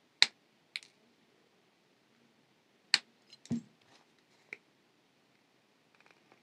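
Side cutters snipping 21-gauge brass wire with one sharp click, then a fainter click. About three seconds in comes another sharp click and a dull knock, and light clicks follow near the end.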